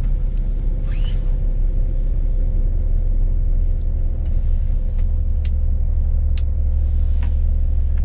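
Scania S500 truck's diesel engine running with a steady low rumble as the truck is parked, with a few short sharp clicks.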